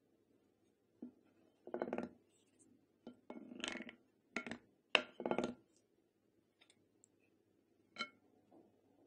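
Blue plastic spoon stirring a runny glue-and-water slime mix with foam beads in a glass bowl, knocking and scraping against the glass. It comes as a string of short clinks and scrapes, the sharpest about five seconds in, with one last clink near the end.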